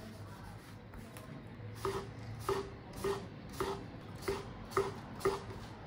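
Long Japanese slicing knife (yanagiba) chopping through a cucumber on a wooden cutting board. About two seconds in come seven crisp cuts, about two a second, each ending in a knock of the blade on the board.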